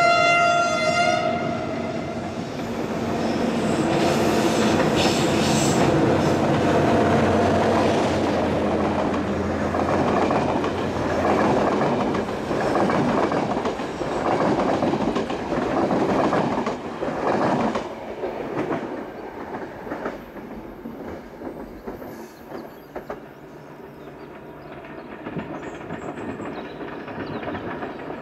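A passenger train's horn sounds once for about a second and a half at the start. It is followed by the train rolling past, with the clickety-clack of the coach wheels over the rail joints. The sound fades away in the second half.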